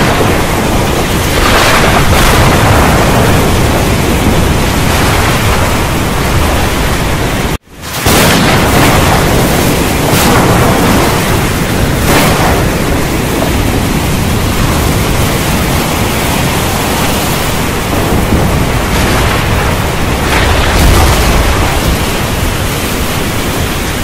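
Thunderstorm: heavy, steady rain with rolling thunder that swells and fades beneath it. The sound cuts out abruptly for a split second about a third of the way through, then comes straight back.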